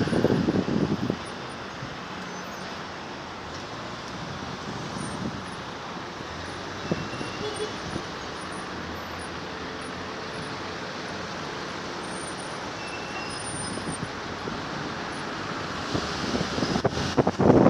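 Road traffic noise heard from a car moving slowly in city traffic: a steady mix of engines and tyres. Louder rushes of noise come in the first second and again near the end, where the wind starts buffeting the microphone as the car picks up speed.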